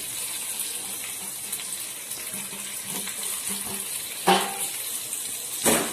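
Chopped onion, ginger and garlic with dried chillies sizzling steadily in hot oil in a clay pot, with two sharp knocks, one about four seconds in and one near the end.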